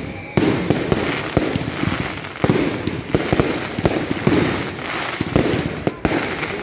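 Aerial fireworks display: shells bursting overhead in quick succession, with loud bangs and many smaller sharp pops between them.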